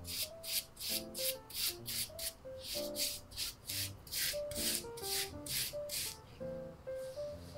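Small offset spatula scraping and spreading a crumbly brown filling over rolled-out bread dough in quick repeated strokes, about three a second, stopping shortly before the end.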